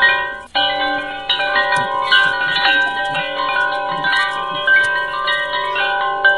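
Background music: a melody of held, ringing notes that overlap one another, with a brief dropout about half a second in.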